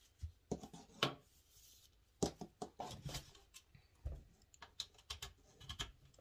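Handling noise from a plastic laptop cooling pad and its USB cable being picked up and turned over: irregular light clicks, taps and knocks.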